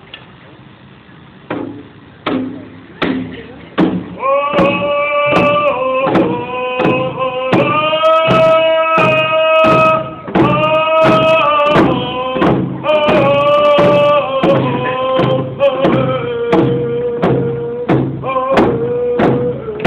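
Native hand-drum song by a group with frame drums. A few spaced drum strikes start it, then from about four seconds in there is a steady beat of about one and a half strikes a second under voices singing together in long held notes.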